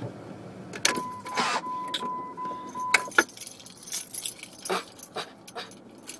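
Car keys jangling and clicking as they are handled in a car, with a steady high electronic warning tone from the car sounding for about two seconds, starting about a second in.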